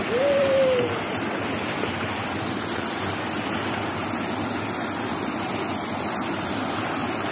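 Small waterfall pouring over a low stone wall into a shallow river, rushing steadily.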